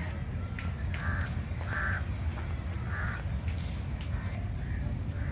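Crows cawing: about five harsh caws, roughly a second apart, over a steady low rumble.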